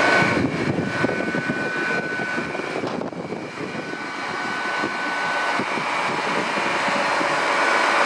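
Hitachi class 800 bi-mode train at the platform with its underfloor diesel engines running: a steady engine rumble with a high, even whine over it.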